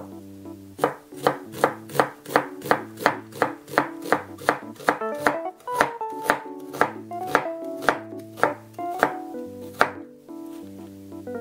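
Chef's knife slicing thinly through a halved onion and striking a wooden cutting board, a steady run of chopping strokes about three a second that starts about a second in and stops near the end. Light background music plays under it.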